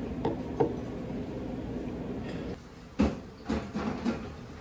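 Restaurant room noise: a steady hum with two light knocks early on, then, after the hum drops away about two and a half seconds in, four sharper knocks and clatters, the first of them the loudest.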